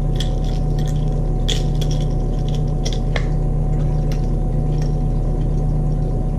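Clear plastic lure case clicking and crinkling in the hands as a popper lure is handled and put into it, a few short sharp clicks spread over the first five seconds, over a steady low hum.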